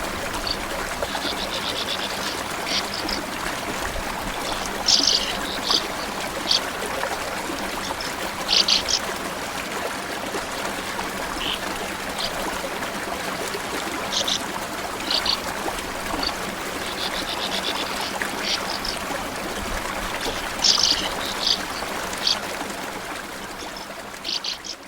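Small stream running steadily, with short, high bird chirps and trills scattered through it.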